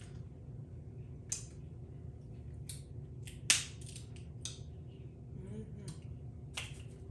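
Eating a seafood boil: a series of short, sharp crunches and cracks of food being broken and bitten, the loudest about halfway through.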